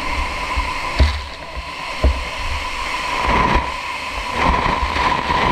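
Wind buffeting the microphone over a steady high hum and a rushing noise that swells in the second half, with two sharp knocks about a second apart.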